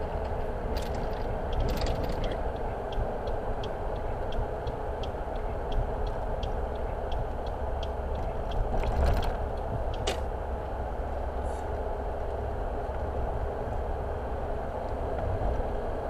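Steady road and engine noise inside a moving car, with a turn-signal indicator ticking about twice a second through the first half, a couple of louder knocks near the middle.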